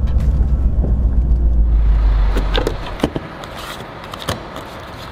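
Jaguar F-Type R's 5-litre supercharged V8 running at low speed, heard from inside the cabin as a deep, steady low rumble that cuts off about two and a half seconds in. After that come a few sharp clicks and knocks as the fuel filler flap is pressed open.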